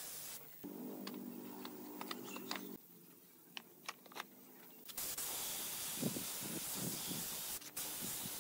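Compressed-air spray gun hissing as it sprays finish onto bare wooden stools. This runs briefly at the start and again from about five seconds in. In the quieter stretch between, there is a low steady hum and a handful of light clicks and knocks as the folding wooden stools are handled.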